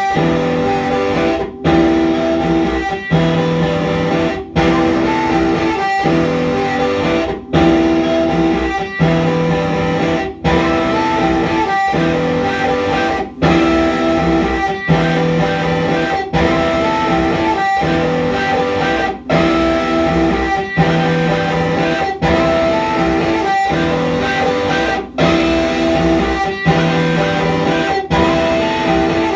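Live electric guitar music: sustained notes and chords in a repeating pattern, cutting out briefly about every second and a half.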